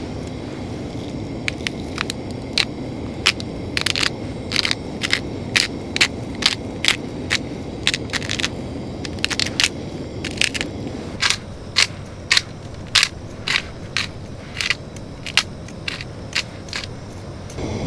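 Hand-twisted bottle-top spice grinder grinding seasoning: a long run of short, crunchy grinding strokes, irregular at about one to two a second.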